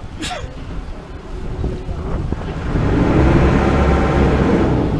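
A small passenger boat's engine revs up hard about halfway through as the boat manoeuvres alongside a jetty, then eases off near the end, with wind buffeting the microphone. A short, high falling call sounds right at the start.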